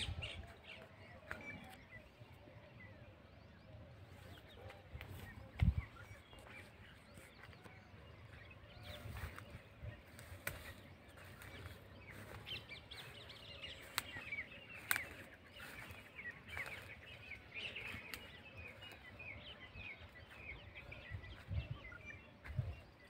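Small birds chirping over faint outdoor background, the chirping busiest in the second half. A few low bumps break in, the loudest about six seconds in.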